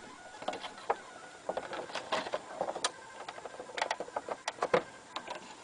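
Irregular plastic clicks and knocks from handling the loose, nearly snapped-off door handle of a Hotpoint Aquarius VTD00 tumble dryer.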